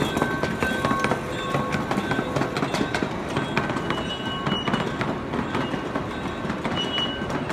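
Miniature ride-on train rolling along its track with a steady rumble, its wheels clicking irregularly over the rail joints.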